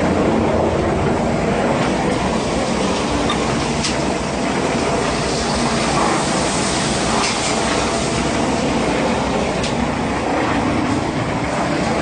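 Concrete mixer pump machine running: a steady, loud mechanical rumble and clatter, with a few faint knocks.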